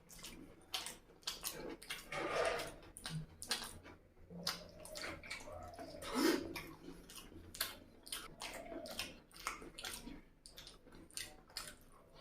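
Close-miked eating sounds: wet chewing and lip smacking of curry and rice, a steady run of short, moist clicks with softer squelches between them.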